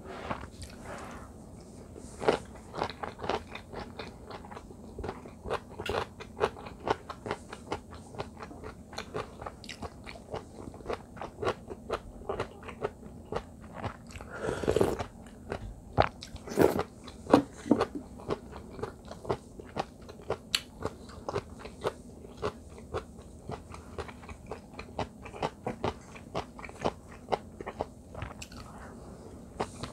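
Close-miked chewing of kkakdugi (radish kimchi) fried rice, a rapid run of wet mouth clicks and crunches. There is a longer noisy sound about halfway through.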